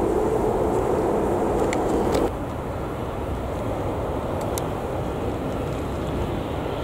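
Jet engines of a twin-engine widebody airliner running steadily as it rolls out after touchdown, cut off abruptly about two seconds in. A quieter, steady rush of jet noise follows from a Boeing 737-700 on final approach.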